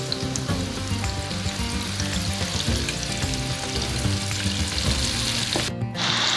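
Onion rings deep-frying in a skillet of hot oil: a steady sizzle with fine crackling that drops out briefly just before the end, then comes back brighter.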